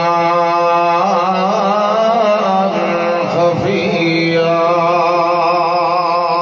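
A man's voice reciting a Quranic verse in slow, melodic tajweed chant, holding each note long with wavering ornaments and moving to a new pitch every second or so.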